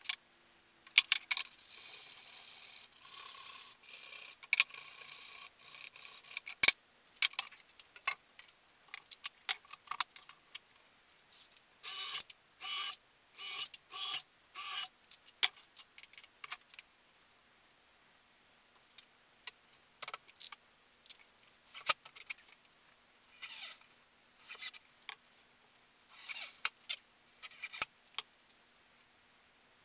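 Hand work on a pine-framed plywood panel: a long rubbing, scraping sound early on, then a run of about five short, even scraping strokes, with scattered clicks and knocks from the wood being handled.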